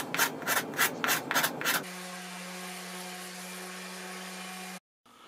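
Hand rasp filing a walnut acorn cap in regular strokes, about four a second. About two seconds in it changes to an electric orbital sander running steadily on the wood, which cuts off suddenly near the end.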